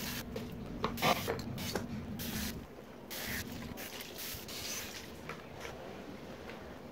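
Water from a garden hose nozzle spraying in irregular bursts into a plastic brake fluid reservoir, rinsing out the degreaser, with a few knocks of the plastic being handled. The spraying eases off near the end.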